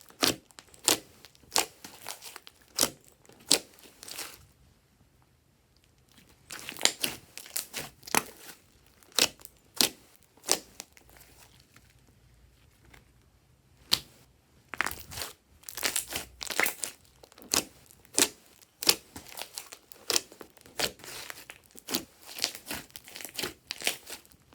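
Glossy slime being squeezed and stretched by hand, making quick sticky clicks and pops in dense runs, with two short pauses.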